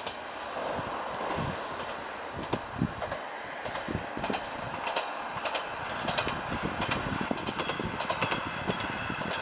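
Kanto Railway diesel railcar KiHa 2402 running along the track and drawing away, a steady rumble with irregular sharp clicks of its wheels on the rails.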